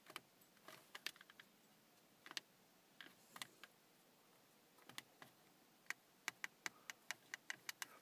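Faint clicks of a Pioneer car stereo head unit's buttons and control knob being pressed and turned. They come scattered at first, then quicken to about four a second near the end. The unit itself, which is not powering up, makes no sound.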